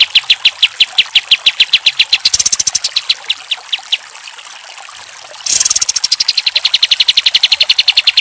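Kapas tembak (olive-winged bulbul) singing its rapid-fire song: a fast, even string of sharp repeated notes, about seven a second. It breaks off about four seconds in and starts again slightly faster a second and a half later.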